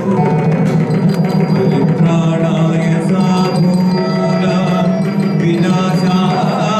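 Indian classical dance music: a sung, chant-like melody over a steady low drone.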